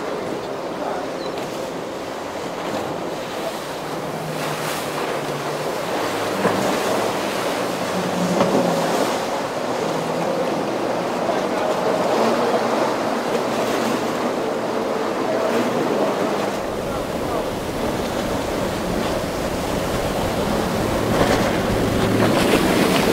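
Waves breaking and churning water, with wind buffeting the microphone and a boat's engine running underneath, its tone coming and going.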